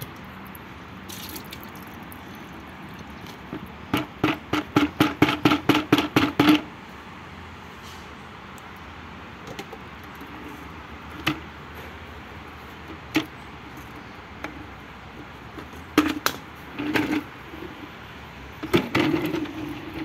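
Dirty water sloshing back and forth in the plastic collection tank of a Krisbow wet-and-dry vacuum cleaner: a quick run of about a dozen sloshes, roughly four a second, a few seconds in, then a few separate splashes and knocks of the tank.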